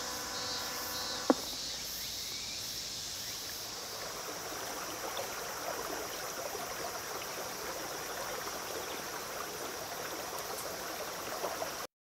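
The last note of the outdoor disaster-prevention loudspeaker chime dies away and is cut off by a single sharp click about a second in, as the loudspeaker switches off. After that, cicadas sing steadily, a high hiss.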